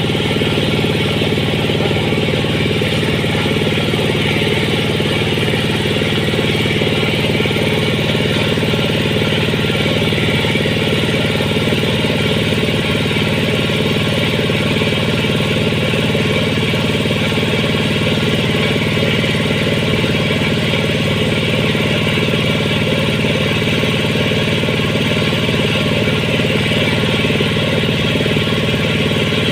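An engine running steadily at a constant speed: an even drone that holds the same pitch and level without change.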